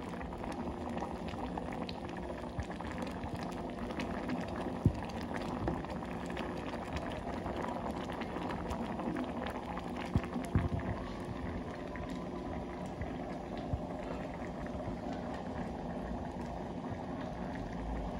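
Pot of white beans bubbling at a rolling boil on a gas stove: a steady bubbling with many small pops, and a few light knocks about 5 and 10 seconds in.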